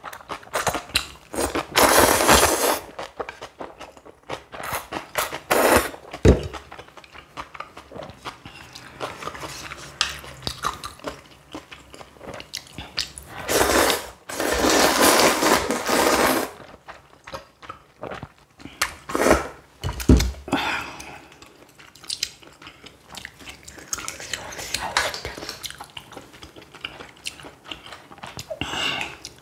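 Close-miked eating of kalguksu noodle soup and spicy kimchi: chewing and crunching, with a few longer slurps lasting a second or more and scattered clicks of utensils.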